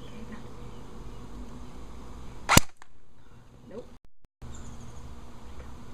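A single sharp shot from an airsoft gun firing a BB, about two and a half seconds in.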